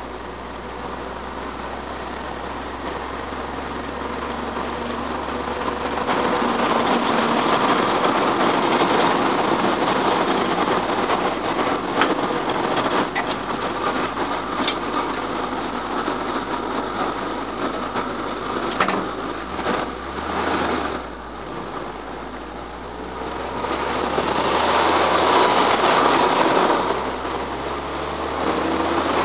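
1952 Chevrolet pickup driving, heard from inside the cab: steady engine and road noise with rattles and a few sharp clicks. It grows louder about six seconds in, dips briefly, and rises again near the end.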